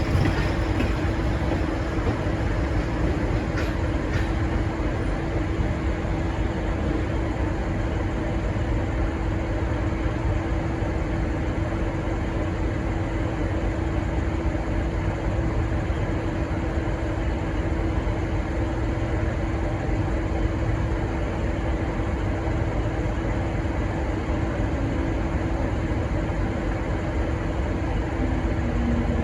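Idling diesel train engines: a steady low rumble with a constant hum over it.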